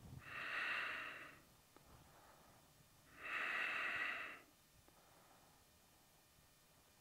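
A man's slow, deep breaths during a held yoga stretch: two long breaths about three seconds apart, each lasting about a second.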